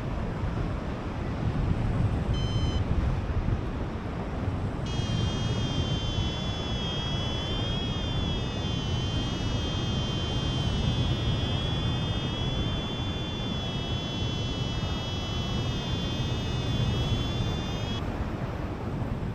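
Wind rushing over the microphone in flight. A paragliding variometer sounds a continuous tone that wavers in pitch, from about five seconds in until near the end, as the glider sinks low.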